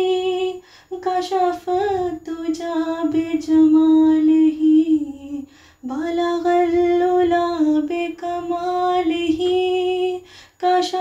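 A woman singing a naat solo, in long held notes with slides and waver, breaking briefly between phrases.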